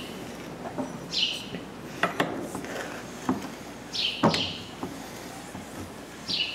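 Sharp metallic clicks and knocks of a wrench and hands on a WP motorcycle fork tube as its cap is screwed back on. The loudest come about two and four seconds in. A bird's short falling chirps repeat every second or two.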